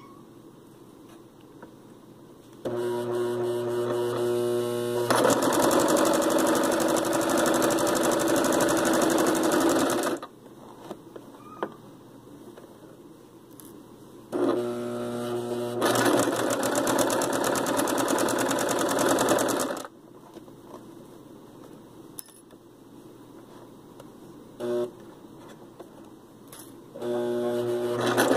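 Electric sewing machine stitching in bursts: two long runs of several seconds, each starting with a steady hum and then speeding up, a short blip, and another run starting near the end, with quiet pauses in between.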